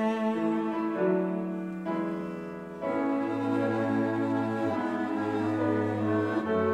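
Chamber ensemble of violins, viola, cellos, flute, clarinets and piano playing a slow instrumental hymn arrangement with sustained bowed notes. The cellos are prominent at first; about three seconds in the ensemble grows fuller and louder, with a low held bass line.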